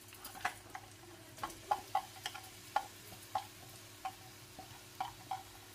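Chopped onions frying in hot oil in a pan, crackling with irregular short pops a few times a second.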